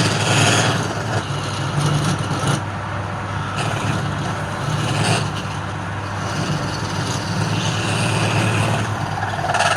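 Wood lathe running with a steady low motor hum, and a tool cutting the spinning wood in stretches of louder hiss near the start, about five seconds in, and near the end.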